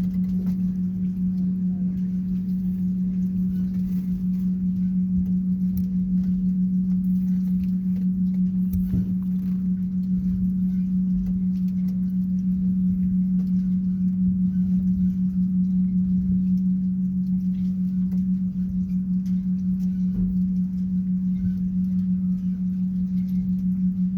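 A steady low hum on one unchanging pitch, with a low rumble underneath.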